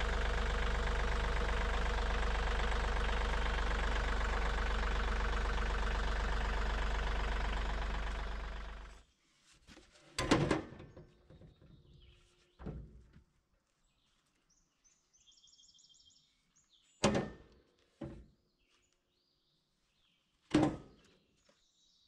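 Wood-Mizer LT40 sawmill engine idling steadily, then shutting off about nine seconds in. After it stops, five single thumps of wooden lumber being set down on the mill bed, with faint birds chirping.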